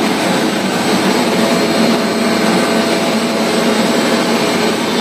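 Auxiliary blowers running in the machine room of a WAG9/WAP7 three-phase electric locomotive: a loud, steady rush of air with a low hum and a faint high whine.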